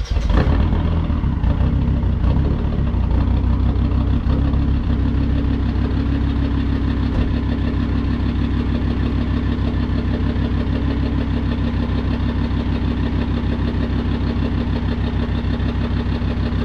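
Jeep Grand Cherokee WJ's 2.7 CRD five-cylinder common-rail diesel firing up and settling into a steady idle on a test start after its injectors were refitted with 3D-printed injector seals. It runs fuller for the first four or five seconds, then evens out.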